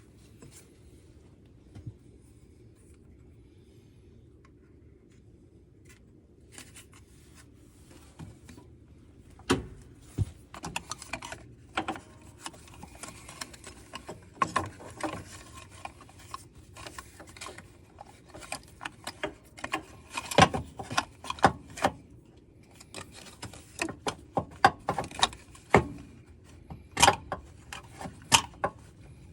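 Irregular metal clicks, knocks and scraping as a compact tractor's drive shaft is worked back into place from underneath. They start a few seconds in and come in quick clusters, over a faint steady hum.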